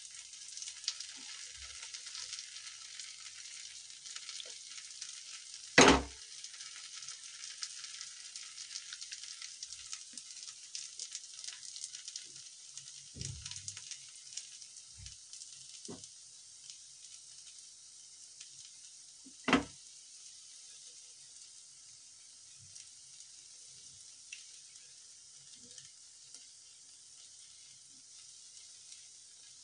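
Oil sizzling and crackling around semolina appe frying in the cells of a non-stick appe pan over a gas flame, growing fainter in the second half. Two sharp knocks cut through it, one about six seconds in and one near twenty seconds.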